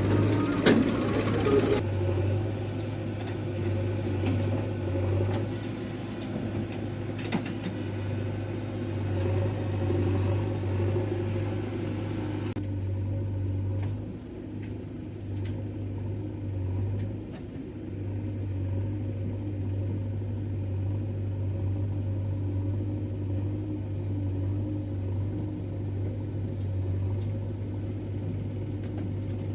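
Heavy diesel engine of earthmoving machinery running steadily, with a strong low hum, and a few sharp clanks in the first two seconds.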